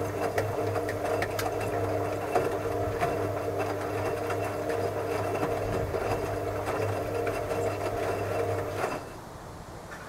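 Hoover Logic front-loading washing machine's drum motor running steadily, turning the wet laundry during a rinse, with light ticks and knocks from the load. The motor cuts out suddenly about nine seconds in as the drum stops.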